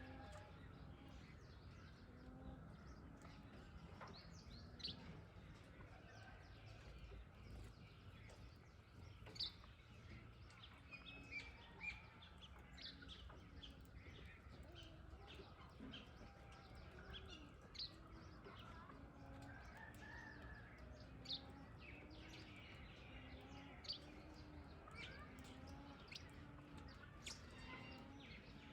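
Faint outdoor bird calls: many short, sharp, high calls scattered throughout, over a low short note repeated again and again and a steady background hiss.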